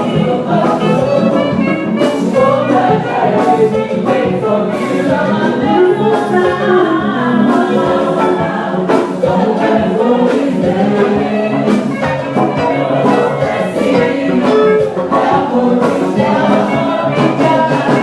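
Church choir singing an anthem with instrumental accompaniment and frequent percussion hits.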